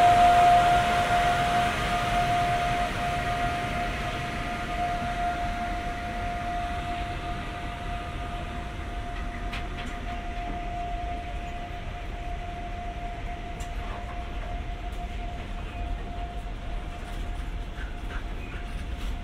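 Freight train of open wagons rolling past, a low rumble from the wheels under a steady high-pitched whine that fades away over the first several seconds, with a few faint clicks from the wheels later on.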